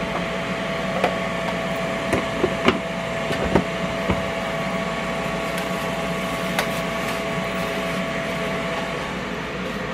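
Steady hum of a countertop air fryer's fan running, with several light plastic knocks and clicks in the first four seconds and one more past the middle as wings are dropped into a plastic breader shaker bowl and its lid is pressed on.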